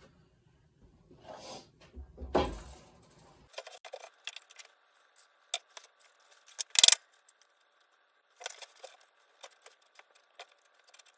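Wooden framing boards knocking and clattering as they are set down and shifted on a plywood deck: two knocks in the first few seconds, then scattered light clicks and one sharp clack about seven seconds in.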